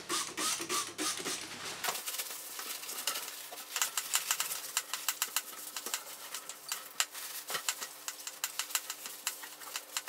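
A few squirts from a hand trigger spray bottle in the first couple of seconds, then blue paper towel rubbed back and forth over the plastic inner liner of a fridge door, a dense run of small squeaks and scuffs. The door is being cleaned with methylated spirits before gluing.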